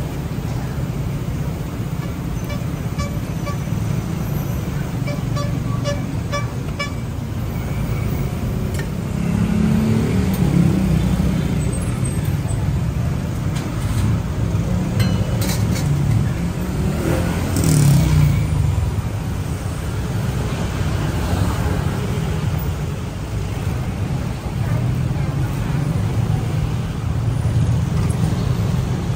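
Street traffic noise: a steady low rumble of cars and motorbikes going by, with louder passing vehicles about ten seconds in and again near eighteen seconds. A run of short repeated beeps sounds a few seconds in.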